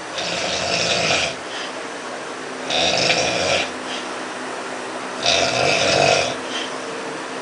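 A dog snoring loudly: three long snores, each about a second long, coming about every two and a half seconds.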